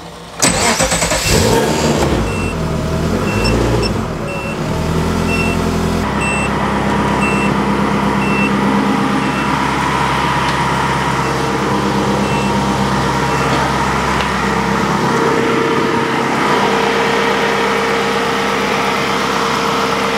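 Ferrari engine of an Alfa 105 starting, catching about half a second in; its speed shifts for the first few seconds, then it settles into a steady idle. A short high warning beep repeats about once a second for the first dozen or so seconds.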